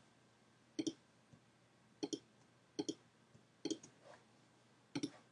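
Computer mouse clicking: five quick double clicks, spaced irregularly about a second apart, as lines are drawn point to point in a drawing program.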